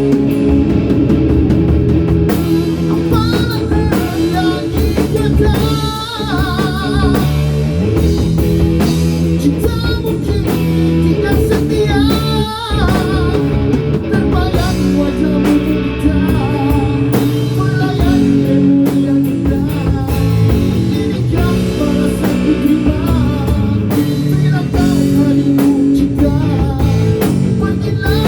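Live rock band playing a song: a singer's voice over electric guitar and drum kit.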